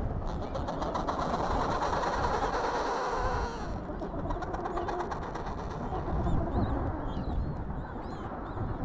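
Wind rumbling on the microphone over the calls of an Adélie penguin colony. Faint, short, high chirps come in during the second half.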